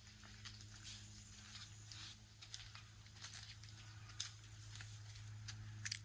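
Faint footsteps of a person walking, a series of short, soft crunching steps at an uneven pace over a low steady hum.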